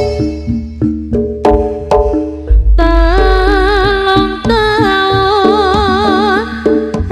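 Live Javanese jaranan gamelan music. Struck metal keyed instruments play a run of ringing notes, and about three seconds in a high, wavering held melody line comes in over the ensemble with a deep low tone underneath.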